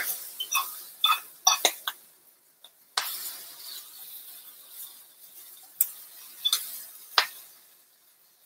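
Metal spoon clinking and scraping against a skillet while stirring kale as it wilts: a scatter of sharp clinks, thickest in the first two seconds and again a few near the end, with a soft hiss of the greens sizzling from about three seconds in.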